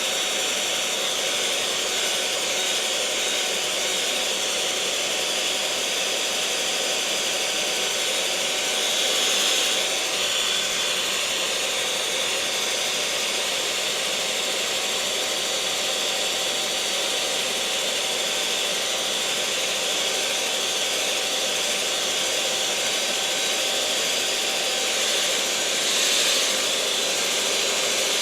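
Electric mixer running at a steady speed: an even whir with a thin steady whine. It swells slightly twice, about ten seconds in and again near the end.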